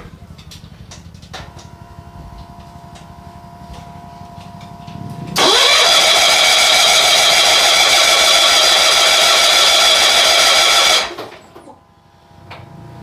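Starter cranking the two-cylinder engine of a John Deere 70 skid-steer in an even rhythm without it firing, a sign of no spark. About five seconds in, a much louder whirring rises in pitch, holds for about five seconds, then cuts off, and the cranking rhythm comes back near the end.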